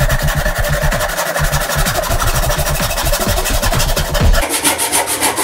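A soap-lubricated backsaw cutting through wood held in a vise, in rapid, even strokes. Background music plays under it until about four and a half seconds in.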